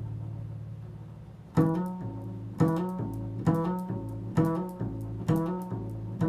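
Slow improvised instrumental music: a steady low held drone, joined from about one and a half seconds in by plucked-sounding pitched notes struck about once a second, each ringing and fading.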